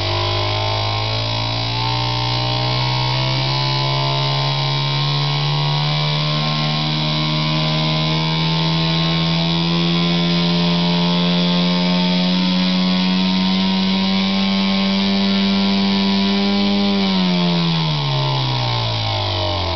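Simulated engine sound from a sound-effect unit on an electric RC airplane, giving a buzzy, engine-like drone in place of the electric motor's whine; its maker feels it lacks low bass. The pitch climbs slowly and steadily, then falls quickly near the end.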